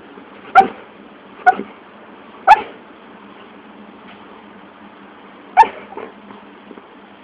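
Doxle (mini dachshund–beagle mix) puppy giving four short, sharp yips: three about a second apart near the start, and a fourth a few seconds later.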